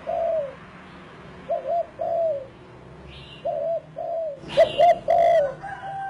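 Spotted dove cooing, repeating a phrase of two short coos followed by a longer drawn-out coo about every one and a half to two seconds. A few faint higher chirps and some sharp clicks come in during the second half.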